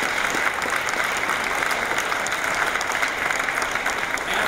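Audience applauding: a dense, steady clapping, with a man's voice starting over it near the end.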